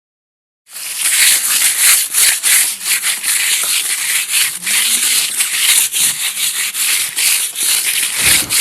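Continuous gritty scraping and rattling noise, starting suddenly under a second in, with many small irregular clicks and no steady rhythm.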